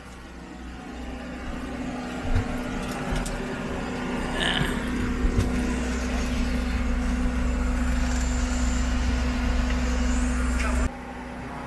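An engine runs steadily with a low rumble and a steady hum, growing louder over the first few seconds, then cuts off abruptly near the end.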